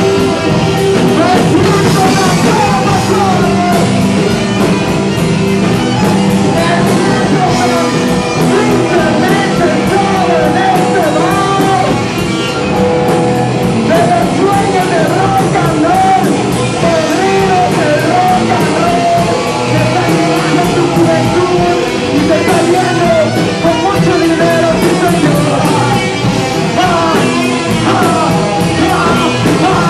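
A live band playing loud, dense rock music with drums, guitar and a wavering sung or played melody line.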